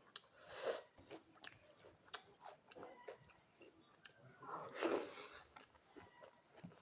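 Close-up chewing of a mouthful of rice and vegetables, with many small wet mouth clicks and smacks, and two louder noisy swells, one about half a second in and one around five seconds in.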